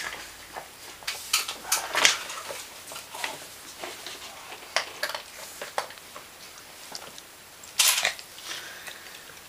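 Crinkly plastic dog-food bag rustling and crackling irregularly as a small dog roots around with its head inside it, with louder crackles about two seconds in and again about eight seconds in.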